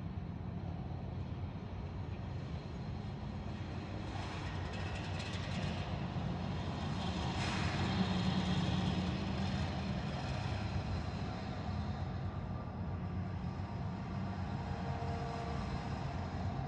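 Rail-yard field recording: a steady low engine rumble and hum that swells about eight seconds in, then eases.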